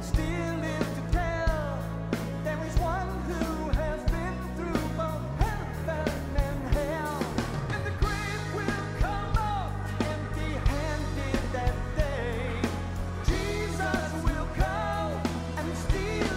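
Live rock band: a male lead vocalist singing over a drum kit and electric bass, the drums hitting in a regular beat.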